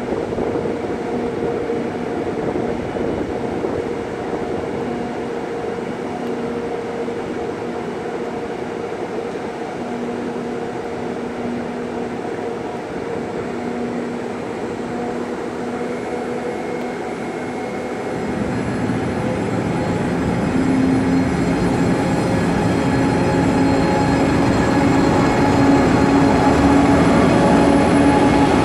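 SRT high-speed train (KTX-Sancheon-type power car) humming steadily at a standstill. About two-thirds of the way in it grows louder as the train starts to pull away, with a whine that rises slowly in pitch.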